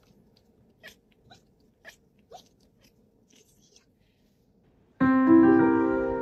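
Faint small clicks, then about five seconds in a sudden loud cluster of many keyboard notes struck at once on an electric keyboard, ringing on and slowly fading.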